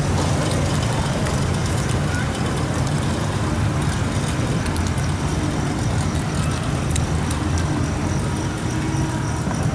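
Small long-tail boat engine running steadily, a low even rumble as it drives the propeller shaft and the boat pulls away.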